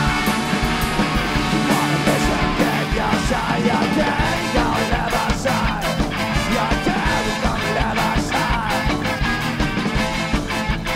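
A rock band playing live, with electric guitar, drums and saxophone.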